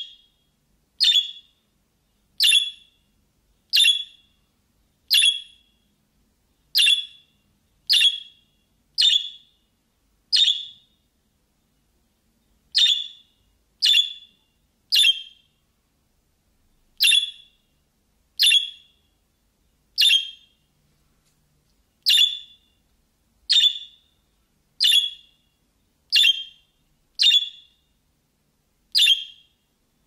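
Budgerigar (budgie) giving the same short, sharp chirp over and over, about one every second or so, with a couple of brief pauses.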